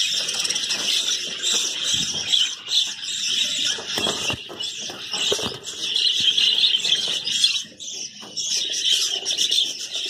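Many budgerigars chattering and chirping continuously in a dense, high twittering, with a few knocks partway through.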